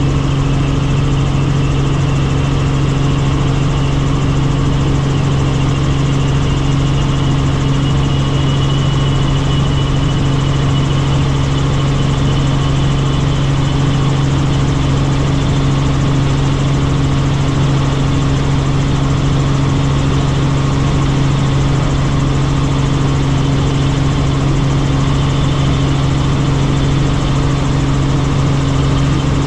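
Helicopter in flight: a loud, steady drone of engine and rotors with a constant low hum, unchanging throughout.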